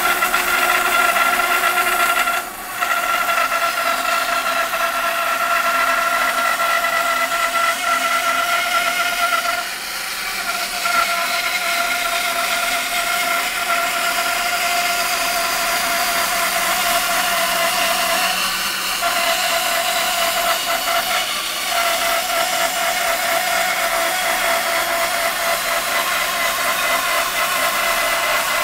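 A band saw running with its blade cutting lengthwise through a wide hardwood board in a resaw: a steady whine over the hiss of the cut, dipping briefly a few times as the feed eases.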